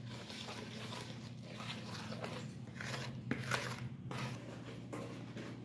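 Wooden spoon stirring flour-and-milk batter in a mixing bowl: soft, irregular scraping and stirring sounds over a low steady hum.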